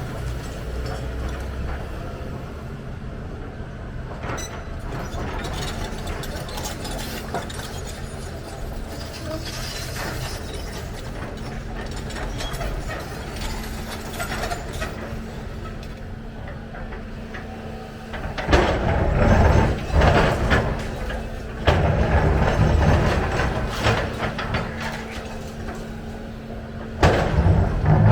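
Volvo EC300 excavator at work: the engine runs steadily, with metallic clanks and rattles. About two-thirds of the way through come several louder stretches of heavy knocking and grinding.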